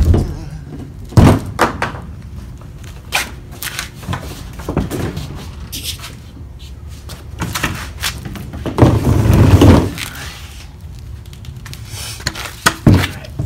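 Hollow knocks and clunks of a plastic kayak and a PVC-pipe kayak cart with small wheels being handled on a concrete floor: a string of separate sharp knocks, with a louder stretch of rough scraping noise about nine seconds in.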